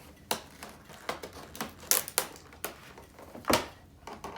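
Hands working at the train set's packaging and small parts: a run of sharp, irregular clicks and rustles, loudest about two seconds in and again about three and a half seconds in.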